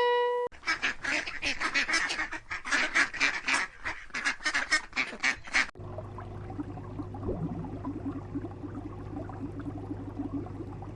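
A flock of ducks quacking rapidly and loudly for about five seconds, then a cut to a quieter stretch with a steady low hum.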